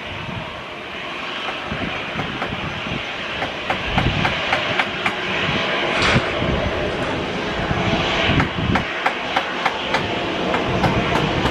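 Strong wind buffeting the microphone: a steady rush with irregular gusty rumbles. From about four seconds in, a run of sharp clicks comes roughly once or twice a second.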